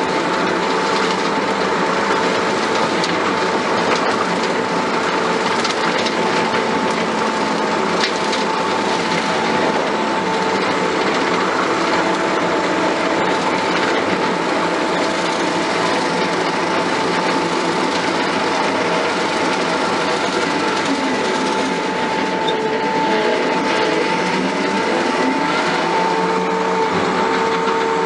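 Skid steer running while its hydraulic-driven rotary mower deck cuts grass: steady engine and blade noise with a constant high whine. Some lower tones shift in pitch a few seconds before the end.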